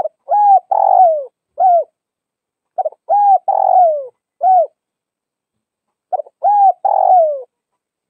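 Spotted dove cooing: three repeated phrases about three seconds apart, each of four coos, a short note, a coo, a longer coo that slides down in pitch, and a short final coo.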